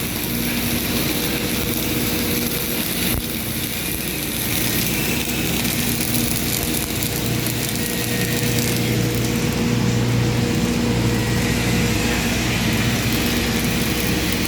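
Steady drone of running shop machinery: a low engine-like hum with a constant hiss over it, and no clear strokes or breaks.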